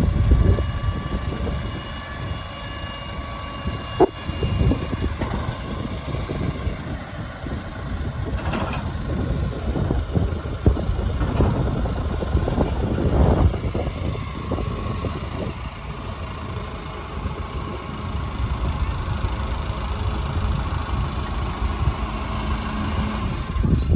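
Backhoe loader's engine running while the machine works, its level swelling and easing, with faint steady whines above it and one sharp knock about four seconds in.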